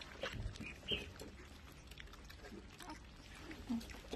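Husky puppies eating dry kibble from stainless steel bowls: scattered crunches and clicks of kibble and muzzles against the metal, with a few short low puppy noises.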